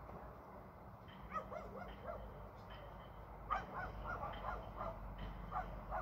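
Dog barking in three quick runs of short barks, over a low steady background hum.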